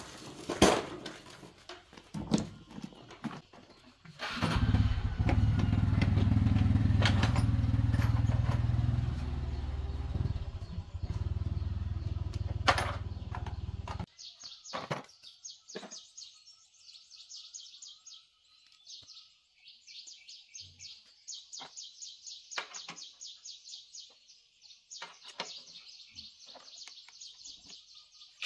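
Clatter and knocks of a metal toolbox being carried and set down, then a small motorcycle engine starts about four seconds in and runs steadily, easing off slightly before stopping abruptly. After that, a rapid, evenly pulsing high-pitched chirping goes on, with light clinks of hand tools being handled.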